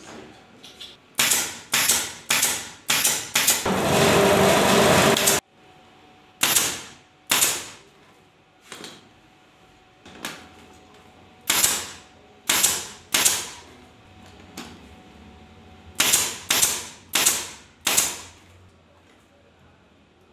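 Pneumatic upholstery staple gun firing staples through fabric into a wooden bed frame: sharp single shots coming in quick runs of three to five, about twenty in all. A few seconds in, a loud rushing noise lasts just under two seconds.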